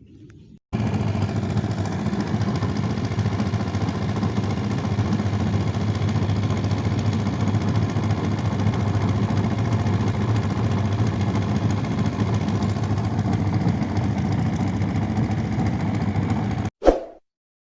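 An engine running steadily at idle with a constant low hum. It starts abruptly, stops abruptly near the end, and is followed by one short loud noise.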